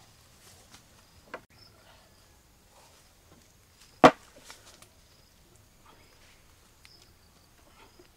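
A single sharp knock about four seconds in as a stone mortar is set down on a wooden table, with a few fainter clicks and handling sounds before and after it.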